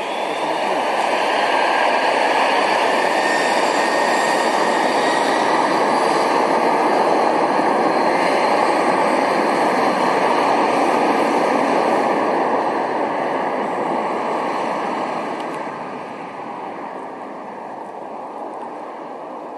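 Boeing 757-200's twin jet engines at takeoff power, running loud with a high whine riding on the roar of the exhaust. The sound eases off after about twelve seconds as the airliner draws away.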